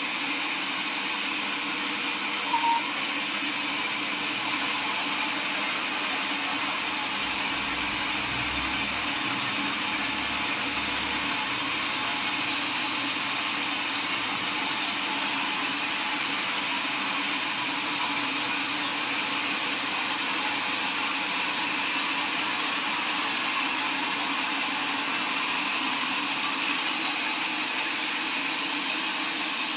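Sawmill saw machine running steadily with an even whirring hum, with one brief short tone about two and a half seconds in.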